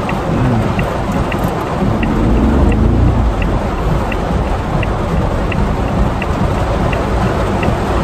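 Heavy rain drumming on the roof and body of a Suzuki Jimny JB64, heard inside the cabin as a loud, dense hiss over a low road and engine rumble. The rumble swells about two to three seconds in, and a light regular ticking repeats roughly every two-thirds of a second.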